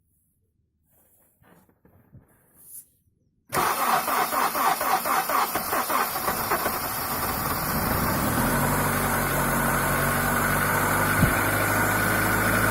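Honda CR-V 2.0 four-cylinder petrol engine cold-started at −17 °C. After about three seconds of near quiet it cranks and catches with uneven pulsing firing, then settles into a steady idle. The owner reports a knock during the first minutes of cold running.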